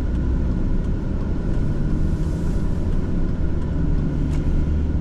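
Steady low rumble of a Chevrolet Silverado pickup being driven, heard inside the cab, with the air-conditioning blower running on a high fan speed.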